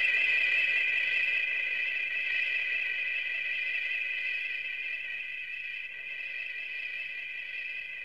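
A sound effect from the Showa-era Gamera films: a shrill, steady high-pitched screech made of several close tones held together, wavering slightly and slowly fading.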